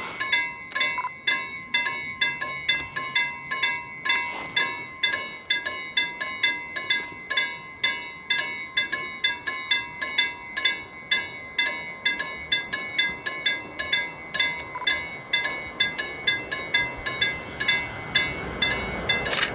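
Level crossing warning bell ringing in an even, fast rhythm of about three strikes a second, signalling an approaching train. Near the end the noise of the oncoming train rises under the bell.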